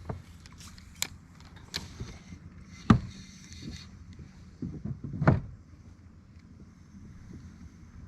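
Scattered knocks and bumps on a small plastic fishing boat, the sharpest about three seconds in and a heavier one around five seconds, over a low steady hum.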